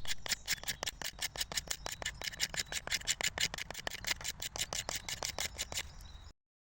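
Steel striker scraped rapidly down a ferro rod to throw sparks, in quick even strokes about five a second, cutting off suddenly near the end.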